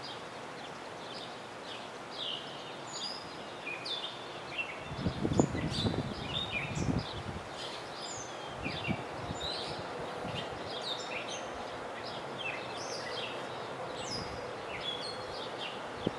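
Small birds chirping repeatedly, many short high calls overlapping over a steady background hiss. A few low rumbles come about five to seven seconds in.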